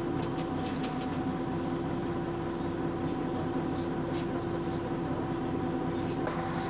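Scania CN113CLL city bus's diesel engine and drivetrain droning at a steady pitch, heard from inside the passenger cabin, with a few faint rattles.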